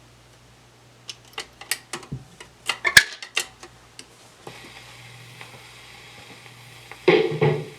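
A 1956 RCA 45 rpm record changer cycling: a low hum, then a quick run of mechanical clicks and clunks as the mechanism drops the record and sets the tonearm down. The stylus hiss of the groove follows, and the record's music starts near the end.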